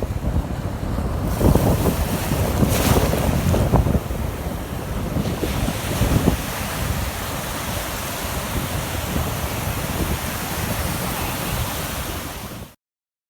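Surf washing onto the beach, with wind buffeting the microphone in uneven gusts; it cuts off abruptly near the end.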